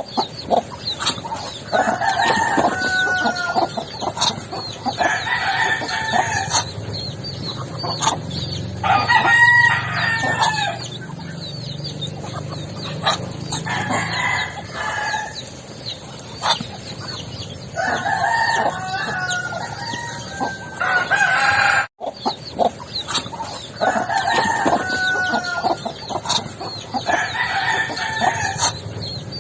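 Backyard poultry calling: loud, drawn-out calls of one to two seconds each, repeated every few seconds, over a scatter of short clucks and chirps. The sound cuts out briefly about three-quarters of the way through.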